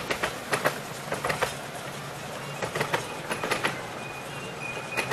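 Miniature railway passenger carriages rolling past, their wheels clicking over the rail joints in quick clusters as each carriage crosses. A faint thin wheel squeal comes in near the end as the train takes the curve.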